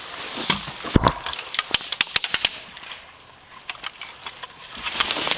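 Airsoft gunfire exchanged around a wooden fort: a quick, irregular run of sharp cracks about a second in, lasting about a second and a half, then a few scattered cracks later.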